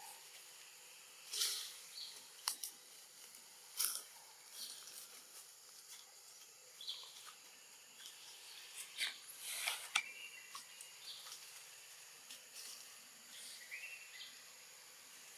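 Outdoor ambience among trees: a faint steady hiss with scattered short rustles and snaps, and a few brief high chirps, the loudest snaps about 1.5, 4 and 10 seconds in.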